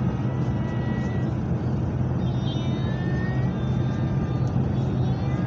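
Steady engine and tyre noise heard from inside a car driving through a road tunnel at about 70–80 km/h, a continuous low rumble.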